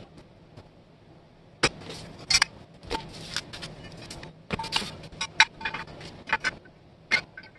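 Cast-iron and steel parts of an antique label paster being handled and taken apart: the toothed disc roller and its shaft clink and knock against each other and the bench, with short scrapes between. A run of sharp clicks and clinks, the loudest a little under two seconds in and again around five and a half seconds.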